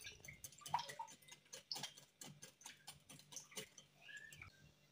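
Wire whisk beating a thin egg-and-milk mixture in a glass bowl: faint, quick light clicks of the wires against the glass, about three a second, stopping shortly before the end.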